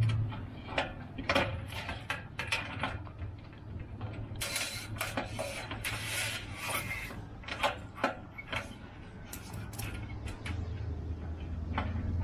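Stainless wire shrouds and their shackles clicking and rattling against the sailboat's aluminium mast as they are untangled and pulled out by hand. There are irregular light clinks throughout, with a busier stretch of rustling and clatter about halfway through, over a low steady hum.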